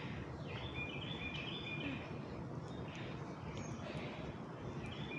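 Steady outdoor background noise with a bird singing one short phrase of quick, stepped high notes about a second in.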